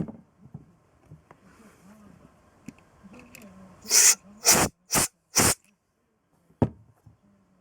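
Short blasts of pressurised gas hissing during motorcycle carburettor cleaning: four quick blasts about half a second apart, then one more a second later.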